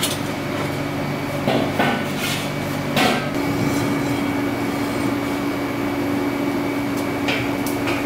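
Steel welding-cart frame and a gas cylinder knocking and clanking as they are handled and set down: a few sharp metal knocks, the loudest about three seconds in and two more near the end, over a steady low hum.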